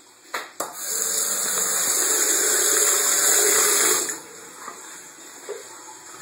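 Water running from a bathroom tap for about three seconds, after two short clicks, then shut off abruptly.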